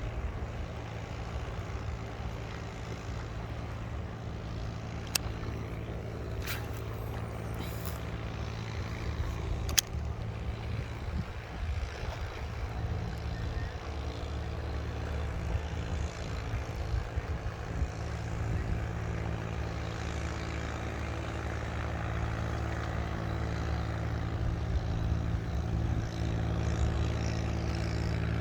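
Small boat engine running steadily at a constant speed, with a few sharp clicks about five to ten seconds in.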